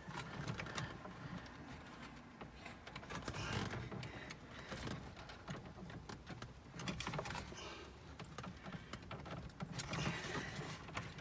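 Hands working at plastic car dashboard parts: scattered small clicks, taps and rustling while struggling to release a stiff clip and plug on the indicator relay.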